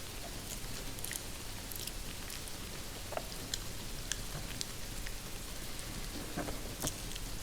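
Recorded rain falling on a greenhouse roof: a steady patter with scattered sharp drop clicks, a few louder ones in the second half.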